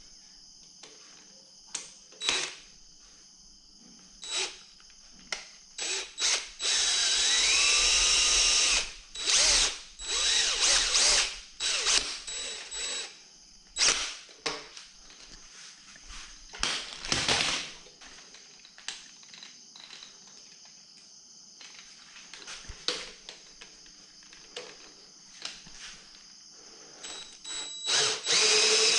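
Electric hand drill run in repeated short bursts, with one longer run of about two seconds about seven seconds in whose whine climbs in pitch as it speeds up, and another burst near the end.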